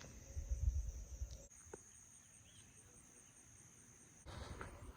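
Chorus of insects outdoors, a steady high-pitched drone, with a faint low rumble for the first second and a half.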